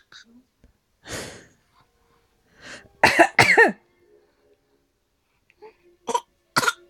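Short coughs traded back and forth with a baby, a coughing game: a breathy cough about a second in, a louder two-part vocal reply with falling pitch around three seconds, and two sharp short coughs near the end.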